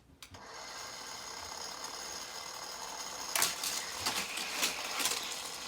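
Battery-powered Hot Wheels track booster whirring steadily as its motor spins up, starting about a third of a second in. From about three and a half seconds in, a quick run of sharp clicks and clatters comes as the die-cast car is launched along the plastic track.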